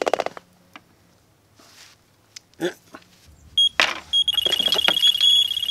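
Mobile phone ringing: a high, fluttering electronic ringtone starts about four seconds in and keeps going.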